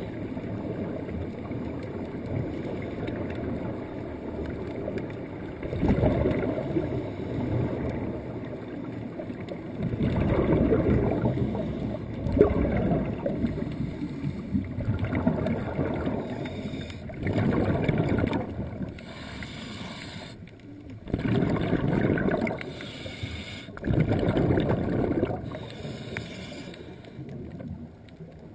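Muffled underwater noise heard through the camera's housing: a steady low rumble with surges of bubbling air every few seconds.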